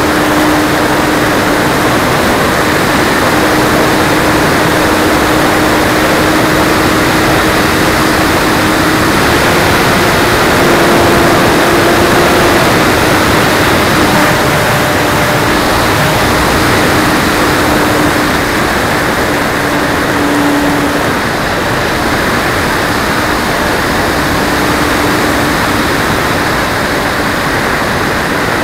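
Onboard sound of an E-Flite Splendor electric RC plane in flight: a loud rush of air over the camera, with the 6S-powered motor and propeller giving a steady hum. The hum's pitch wanders a little, rising about nine seconds in and dropping back near thirteen seconds.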